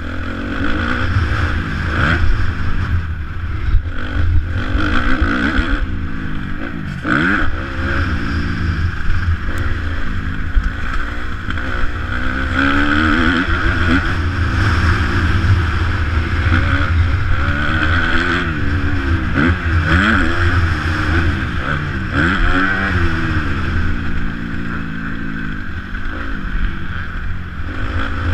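Kawasaki 250 motocross bike's engine, heard from on the bike, revving up and dropping back over and over, its pitch rising and falling as it is ridden hard around a dirt track.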